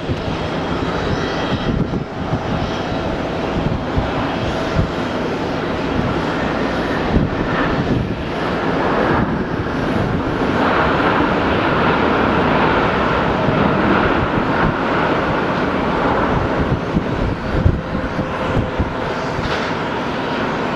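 Boeing 787-8 jet airliner's engines during the landing rollout after touchdown, a steady rushing roar that swells about halfway through and holds.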